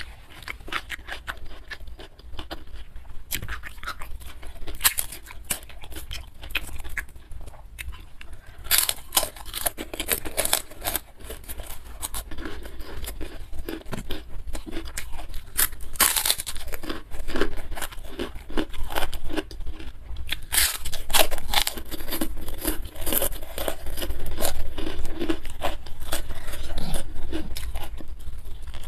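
Close-miked eating: chewing, crunching and wet mouth clicks and smacks as food is eaten by hand, a dense run of short crackles that becomes busier and louder about nine seconds in.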